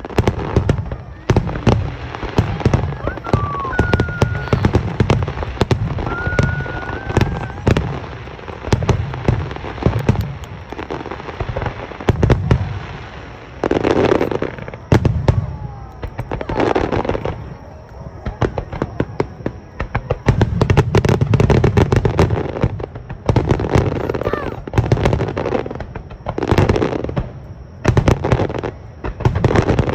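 Aerial fireworks shells bursting in dense, rapid succession: deep booms overlapping with sharp cracks and crackling, with a few brief whistles a few seconds in.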